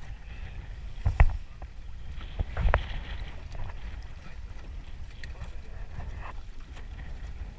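Small waves lapping against the hull of a small boat with its motor off, under a steady rumble of wind on the microphone. Two louder thuds stand out, about a second in and again near three seconds.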